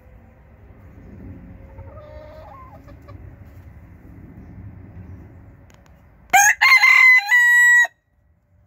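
Black Cochin rooster crowing once, close by, about six seconds in: a loud crow that breaks into a few short notes and then ends on one long held note that stops abruptly.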